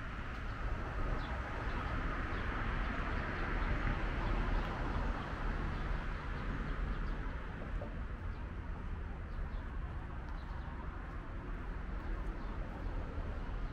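Steady outdoor street ambience, a constant low hum and hiss, with birds calling faintly now and then.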